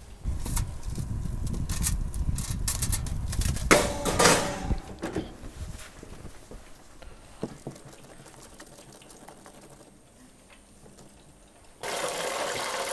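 Cloth rustling as hands are wiped on a tea towel, with a few sharp knocks about four seconds in, then quieter handling clicks. About a second before the end a steady sizzle of hot oil starts suddenly as the deep-fat fryer basket is lifted out.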